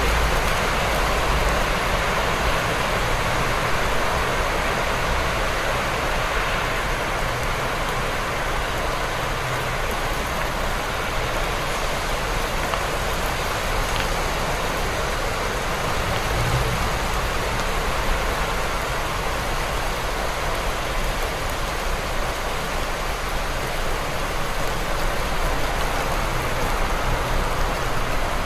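Steady city rain falling, an even hiss of drops over a continuous low rumble underneath.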